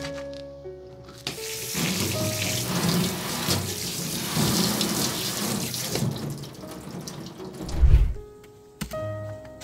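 Tap water running and splashing over a steel kitchen knife blade as it is rinsed. The water starts about a second in and fades out after about six seconds. A short, loud low thud follows near the end.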